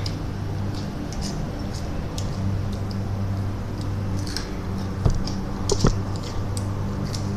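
Flamin' Hot Cheetos being chewed, with small crisp crunches scattered through, and two sharper knocks about five and six seconds in, over a steady low hum.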